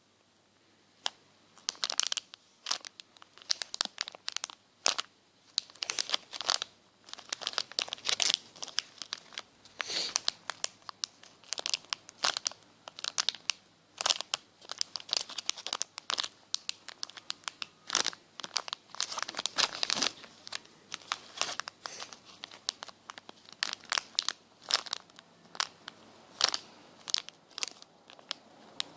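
Close-up crinkling and crackling from hands handling mini squishy foam toys, a dense, irregular run of sharp crackles.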